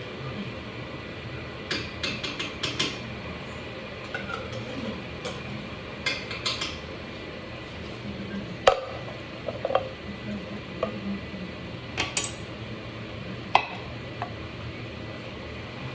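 Kitchen utensils clinking and scraping against pots and dishes in irregular clusters, with a few sharper single clanks in the second half, over a steady low hum.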